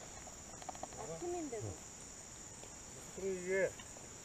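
Steady, high-pitched chorus of crickets. A person's voice is heard briefly twice over it, about a second in and again near the end.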